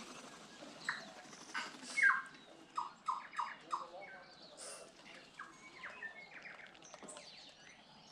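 Tūī singing: a string of short, ringing notes, including a quick run of four notes about three seconds in, mixed with high squeaky notes.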